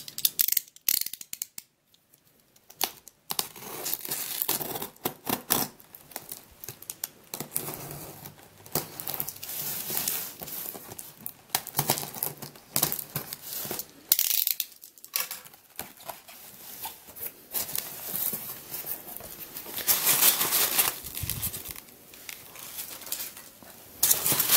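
Packing tape being slit with a utility knife and torn off a cardboard box: irregular scraping, ripping and rustling of tape and cardboard with sharp ticks, pausing briefly about two seconds in. Near the end the flaps are pulled open and polystyrene packing peanuts rustle.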